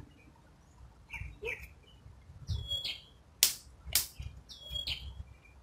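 A bird calling: two short, high calls about two seconds apart, each sliding down onto a briefly held note. A few sharp clicks fall between them.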